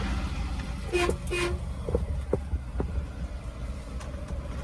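Volkswagen T2 camper van's engine running with a low, steady rumble while the van is driven, with two short horn toots about a second in.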